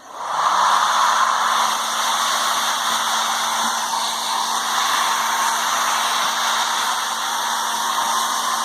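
Hair dryer starting up and reaching full speed within about half a second, then running steadily: an even rush of air over a low motor hum.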